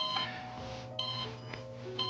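Soft background music with held notes, and a short high beep about once a second.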